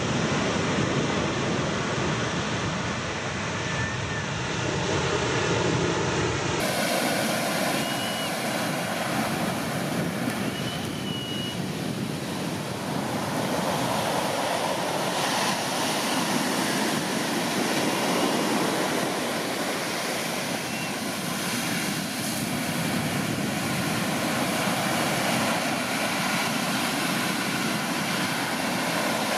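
Big shorebreak waves from a tropical-storm swell breaking and washing up the beach, a continuous rushing noise.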